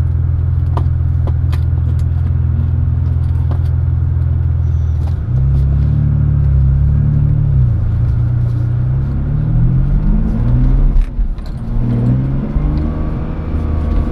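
Car engine, heard from the bonnet, running steadily at first. About five seconds in it revs up and pulls away, rising and dropping in pitch several times as it shifts up through the gears.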